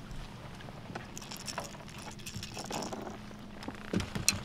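Steady low hum of a boat motor running at trolling speed, with a few sharp clicks near the end.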